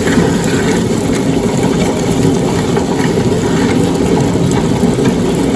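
Electric wet grinder running steadily, a low even hum, grinding soaked idli rice with a little water into batter.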